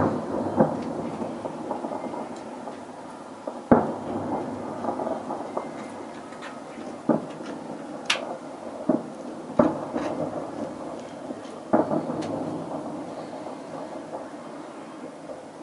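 Distant fireworks salute shells bursting: a series of sharp booms at uneven intervals, each rolling out in echoes like thunder. A continuous rumble of further bursts and faint crackles runs between them.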